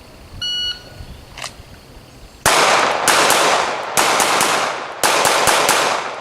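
A shot timer beeps once, about half a second in. About two seconds later a pistol starts firing fast strings of shots, in quick groups with short pauses between them, as in a Haley 1-5 drill.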